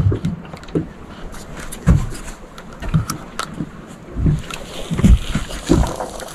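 Small waves lapping and slapping against the hull of a small boat, giving irregular low knocks every half second or so over a soft wash of water.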